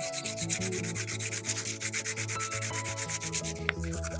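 Background music with a fast, even, shaker-like beat over a stepping bass line and held synth notes.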